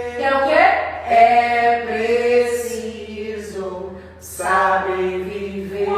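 A voice singing a slow melody in long, held notes with a slight waver, with short breaks between phrases.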